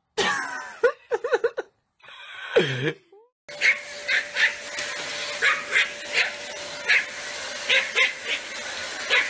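A dog making wavering, whining vocal sounds for about three seconds. Then a small Pomeranian barks in short, high yips, about a dozen of them roughly every half second, over a steady hum.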